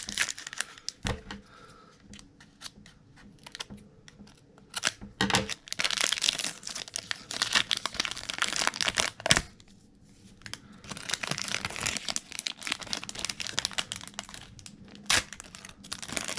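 Foil trading card pack wrappers being torn open and crinkled by hand, in irregular bursts of crackling with a few small sharp taps.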